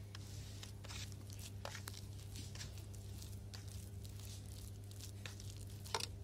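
Fingers squeezing and kneading a thick, grainy tandoori masala paste on a steel plate: scattered small squelching and crackling clicks, with a slightly louder click near the end. A steady low hum runs underneath.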